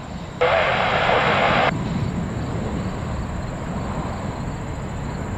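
Jet engines of a departing four-engine Airbus A380-800 rumbling steadily. About half a second in, a burst of air-traffic-control radio hiss with no voice cuts in and stops abruptly just over a second later.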